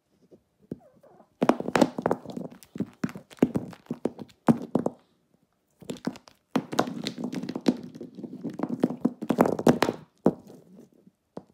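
Hard plastic Schleich wolf and dog figurines banged together and onto the floor mat in a play fight: two flurries of rapid clacks and thuds, one starting about a second and a half in and the other about six seconds in.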